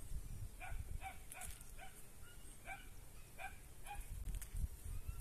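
A dog barking repeatedly: a run of short barks at uneven spacing.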